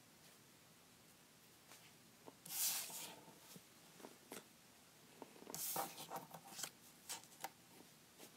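Paper rustling as paper screen cutouts are lifted off a paper phone template and another is laid on, in two short bursts about three seconds apart, with light taps and clicks between.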